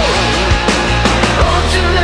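Loud heavy rock music with a steady bass line and regular drum hits.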